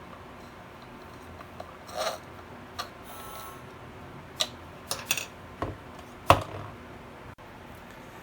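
Scattered clicks and knocks of a screwdriver and the plastic housing of a car door lock actuator being handled while its cover screws are tightened. The loudest knock comes about six seconds in.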